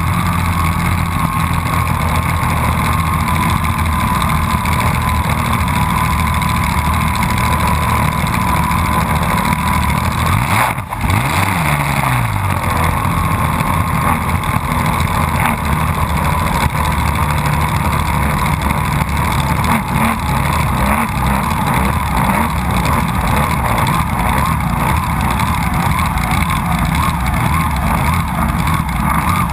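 Race boat's engine running hard at speed, over the rush and hiss of its wake and spray. About eleven seconds in, the engine note dips briefly and climbs back up.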